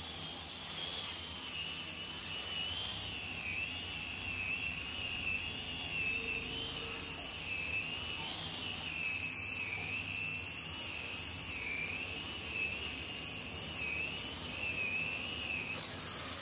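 Electric angle grinder fitted with a sanding disc, running while sanding a hardwood surface: a high motor whine that wavers up and down in pitch as the disc is pressed onto the wood and eased off, over the scratchy hiss of the abrasive. The whine cuts off near the end.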